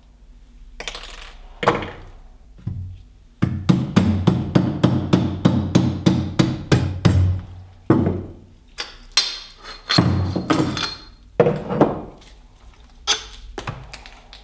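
Knocking on a metal Maglite flashlight barrel to drive out its stuck switch assembly: a few separate knocks, then a quick run of about four or five strikes a second for about four seconds, then more irregular knocks.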